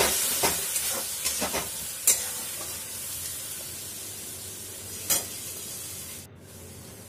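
A spatula stirring and scraping a pan of spiced masala paste just thinned with a little water, over a steady sizzle. There are a few scrapes in the first couple of seconds and one more about five seconds in, and the sizzle slowly dies down.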